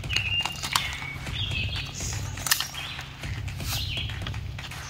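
Wild birds chirping in short calls in the surrounding woods, with a few sharp clicks and taps over a steady low hum.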